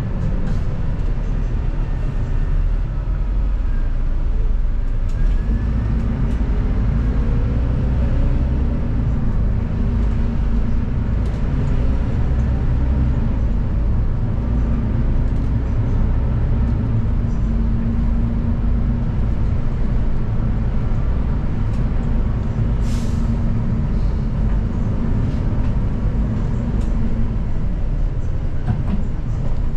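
City bus engine and drivetrain running with a steady low rumble, heard inside the cabin from the rear seat. A short hiss of air about three-quarters of the way through, typical of a bus air brake.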